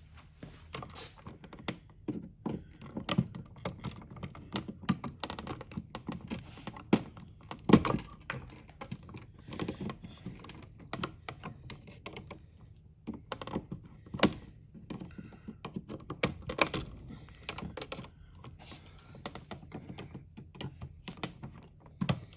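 Irregular small clicks, taps and knocks of hands and a tool working on an electrical switch box and its wiring, with the loudest knocks about 8 seconds in and again about 14 seconds in.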